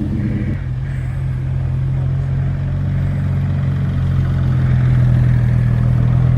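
Car engine running steadily at low revs with a deep, pulsing exhaust note; its tone thins a little about half a second in and it grows slightly louder toward the end.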